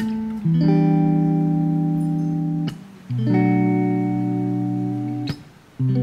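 Instrumental background music led by guitar: held chords that change every couple of seconds, with two brief drops in level between them.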